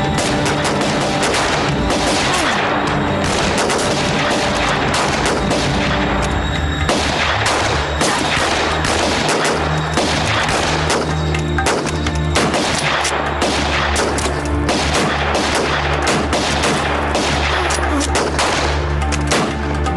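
A continuous rifle skirmish: many shots from several rifles, closely spaced and overlapping, with music playing underneath.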